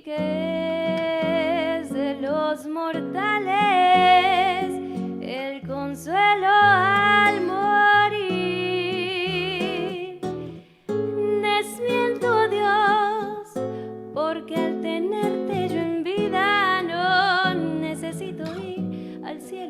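Bolero played on acoustic guitar, plucked chords under a melody line with vibrato, in a passage between the sung lines.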